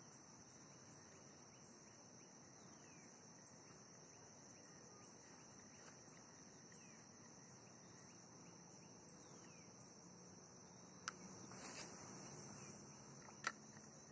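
Very faint, steady high-pitched insect chorus, crickets or similar. Near the end come two sharp knocks with a brief scuffing noise between them.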